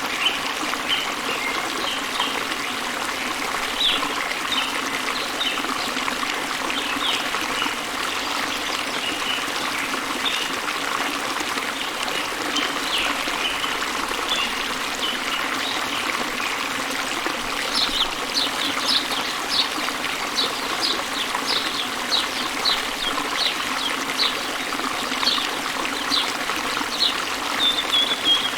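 Steady rushing of waterfall water, with small birds chirping over it in short high notes. The chirping grows busier about two-thirds of the way in, as a quick run of repeated short chirps.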